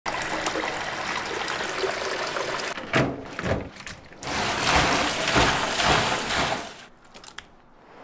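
Tap water pouring and splashing into a plastic basin holding frogs. A few heavy knocks and splashes come about three seconds in, more running water follows, and the sound falls away near the end with a few small knocks.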